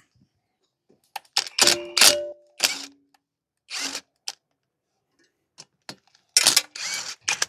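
Metal hand tools and engine parts clinking and clanking as they are handled during an engine and clutch teardown. The knocks are scattered and irregular, and a couple of them ring briefly about two seconds in.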